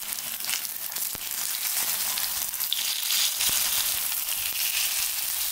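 Shredded zucchini and potato pancakes sizzling steadily in hot oil in a frying pan.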